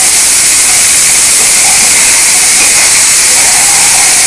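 Mashed paneer frying in ghee in a kadhai: a loud, steady sizzling hiss.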